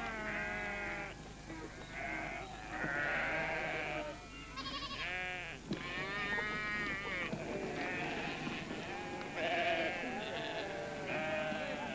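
A flock of sheep bleating, many calls overlapping one another without a break.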